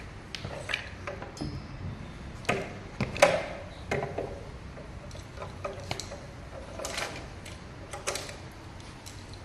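Irregular clicks, knocks and light metallic clinks of hand tools and parts being handled, the loudest a few seconds in.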